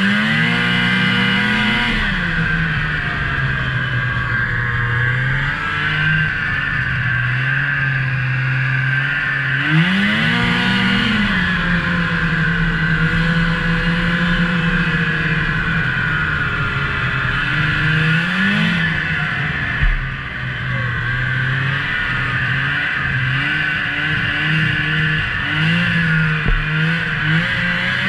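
Snowmobile engine running under way across snow, rising in pitch under throttle near the start, about ten seconds in and again about eighteen seconds in, and holding steady between. A high steady whine runs over the engine note, and there is a brief thump about twenty seconds in.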